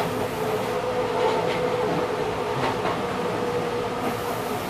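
Enshu Railway 2000-series electric train running on the elevated line, heard from the front of the train: steady running noise with a continuous tone and a few sharp clicks from the track near the middle.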